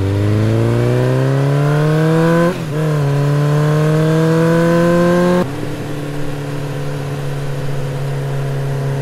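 Motorcycle engine pulling up through the gears: its pitch rises, dips at a gear change about two and a half seconds in and rises again, then settles to a steady, lower, quieter note about five and a half seconds in.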